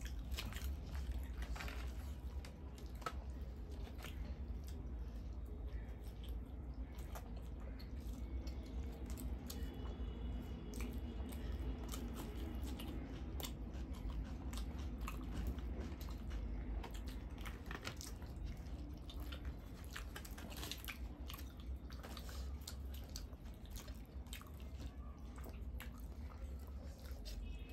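Two people chewing mouthfuls of chole bhature, deep-fried bhatura bread and spiced chickpea curry, close to the microphone, with many small wet mouth clicks and bites. A steady low hum runs underneath.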